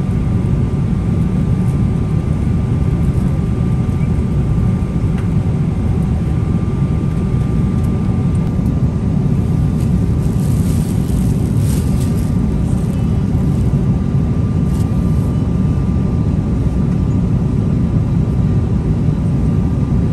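Steady cabin roar of a Boeing 777-300ER airliner, its engines and airflow running evenly, with a faint steady tone over the roar. About halfway through, a brief hiss rises above it.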